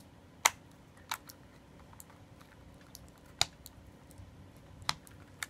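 Scattered sharp plastic clicks as an IDE ribbon-cable connector is worked onto its pin header on a first-generation Apple TV motherboard: five separate clicks, the loudest about half a second in.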